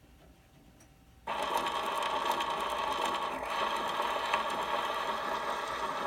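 Edison Diamond Disc phonograph with the reproducer set down on the spinning record about a second in, followed by a steady surface hiss from the diamond stylus running in the lead-in groove before the music, played through the machine's acoustic horn.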